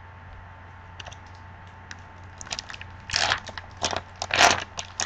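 Foil wrapper of a Topps Finest football card pack being torn open and crinkled by hand: scattered crackles from about a second in, loudest in two bursts a little past three seconds and near four and a half seconds.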